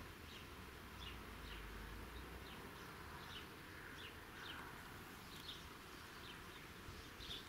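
Faint outdoor summer ambience of insects buzzing, with short high chirps repeating about twice a second.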